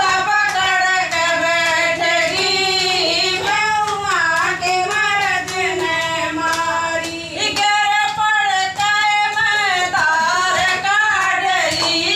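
Women singing a bhajan, a Hindu devotional song, in long wavering held notes, with hand clapping.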